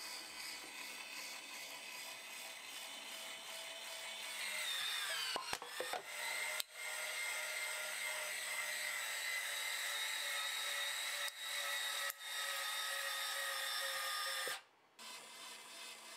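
3D-printed linear actuator's 24 V geared DC motor whining as it drives its lead screw against an aluminium can. About four seconds in the whine drops in pitch as the motor takes the load of the can buckling, and a few sharp crunches of crumpling aluminium follow over the next two seconds. The motor then runs on steadily at the lower pitch, stops about a second and a half before the end, and starts again.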